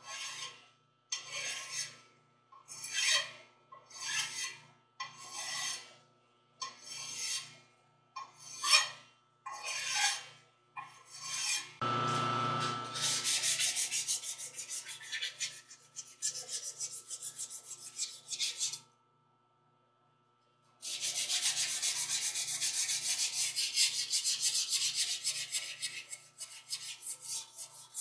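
Hand file stroking the rim of a brass-brazed cast-iron transmission housing in the lathe, about one stroke a second. About twelve seconds in it changes to fast, continuous scrubbing as the rim is polished smooth, in two long spells with a short pause between.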